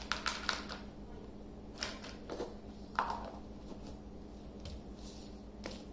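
Light clicks and taps of small plastic toy accessories being handled and put away: a quick cluster in the first second, then a few scattered clicks over the next couple of seconds.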